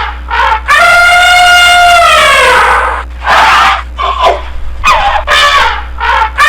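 An animal calling loudly: a few short cries that bend in pitch, then one long held cry of about two seconds that falls in pitch at the end, a short harsh burst, and more short cries.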